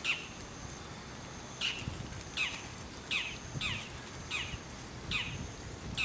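Bull-headed shrike giving its high-pitched autumn territorial call (高鳴き): one sharp note, then after a pause a quick series of about seven harsh notes, each sweeping steeply down in pitch.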